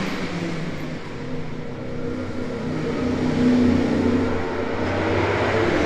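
Motorcycle engine running, the revs rising briefly about three and a half seconds in and then settling back.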